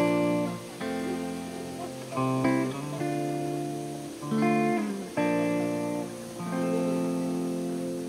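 Background music: guitar chords played slowly, a new chord every one to two seconds, each ringing and fading.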